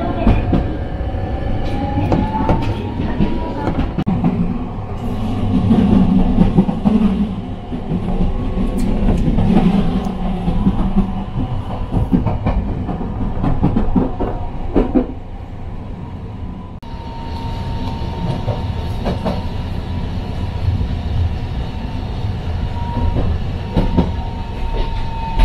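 Toden Arakawa Line tram running along its track. Its motor whine rises in pitch over the first few seconds as it gathers speed, then holds steady over a continuous rumble, with wheels clacking over rail joints.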